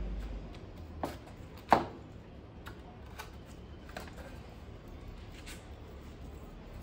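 WPC wall panel clips being pushed and snapped into place by hand: a few sharp clicks and knocks, the loudest a little under two seconds in, then lighter scattered clicks.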